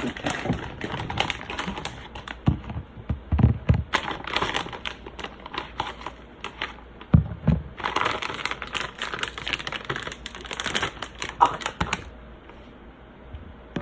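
Plastic food packaging crinkling and rustling as it is opened and handled, with dense irregular crackles and a few dull thumps.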